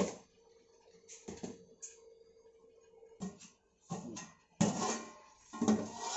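Short knocks and clinks of metal cookware on a gas hob, then a longer scraping rustle as a metal lid is lifted off a large aluminium cooking pot.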